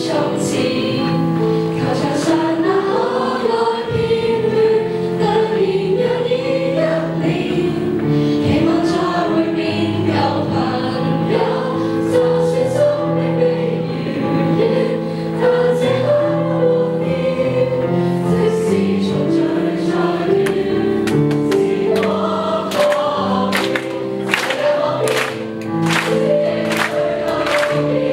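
A large mixed group of boys and girls singing a song together as an unaccompanied-sounding school choir, held notes moving step by step through the melody.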